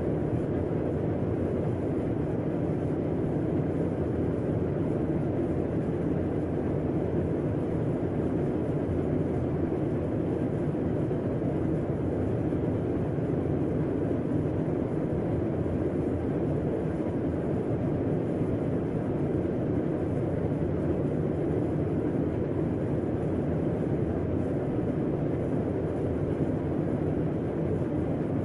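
Air conditioner running steadily: an even, low rush of air and fan noise with a faint steady hum in it.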